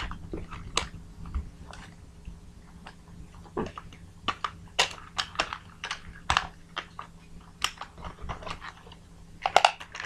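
Irregular small plastic clicks and taps from handling a remote-control monster truck and its controller while batteries are fitted, with a quick cluster of clicks near the end.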